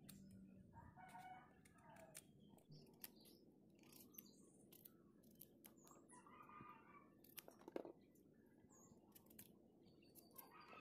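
Near silence: faint clicks of a knife slicing firm fresh mushrooms held in the hand, with chickens calling faintly in the distance a few times.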